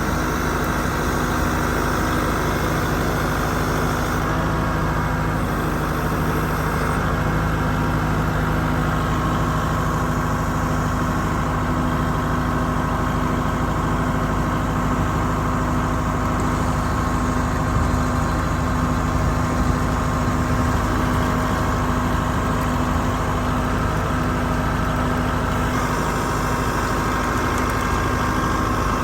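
An engine running steadily at idle, unchanging throughout.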